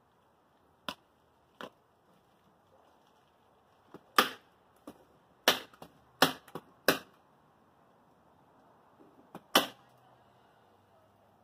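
Hand staplers driving staples through house wrap into plywood sheathing: about ten sharp snaps at irregular intervals, several in quick pairs.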